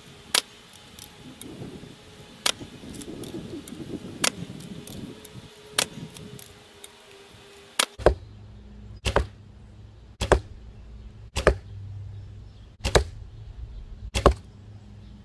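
Arrows shot one after another from a recurve bow: five sharp string snaps with handling rustle between them. About eight seconds in, the sound switches to close by the foam block target, where six arrows strike it in turn, roughly one every second and a quarter.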